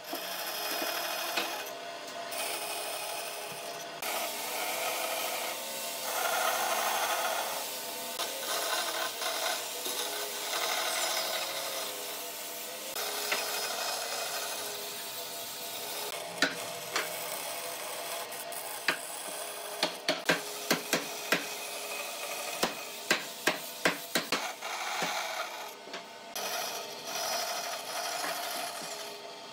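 Band saw running and cutting through thick wooden blocks, the cutting noise swelling and easing as each cut goes in and comes out. Through the second half, a quick run of sharp clicks and knocks sits over the saw.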